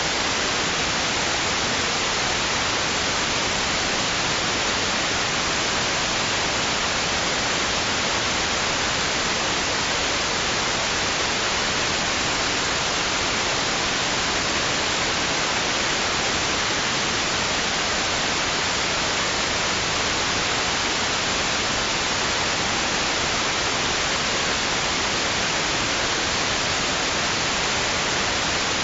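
Steady white noise: an even, unchanging hiss, brightest in the treble, with no rise and fall of waves. It is played as a sleep sound for babies.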